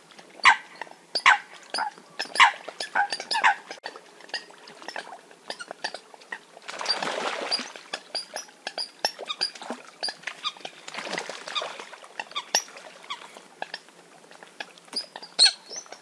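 Eurasian coots calling in a rapid run of short, sharp calls that drop in pitch, several overlapping, loudest in the first few seconds. Two rushes of noise, each about a second long, come near the middle.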